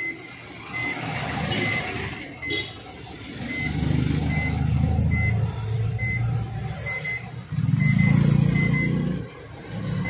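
Microwave oven running with a deep hum in two stretches of a few seconds, started from its rebuilt touch keypad. A row of short high beeps repeats about every three-quarters of a second throughout.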